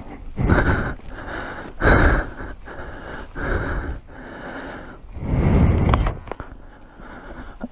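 Heavy breathing of a rider close to the helmet-mounted microphone, several long loud breaths in and out, the loudest about two and five and a half seconds in. He is out of breath after dropping his motorcycle.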